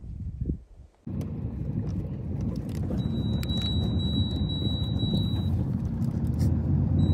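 Vehicle driving on a dirt road, heard from inside the cab: a steady low rumble starting about a second in, with scattered light rattles and a thin high whine that comes and goes.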